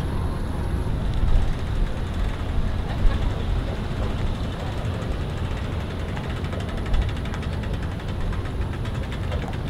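Pickup truck towing an empty boat trailer up a boat ramp: a steady low engine and road rumble, with a sharp knock about three seconds in and another about seven seconds in.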